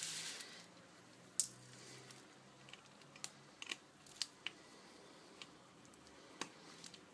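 A small Phillips screwdriver working the tiny screws out of the back of a mobile phone. There is a brief scrape at the start, then about eight light, separate clicks and taps of the metal tool and the screws.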